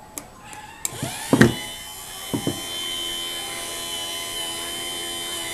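12-volt car windshield wiper motor switched on by a prop controller: a few clicks, then about a second in the motor spins up with a rising whine and settles into a steady running whine. Two knocks come soon after it starts.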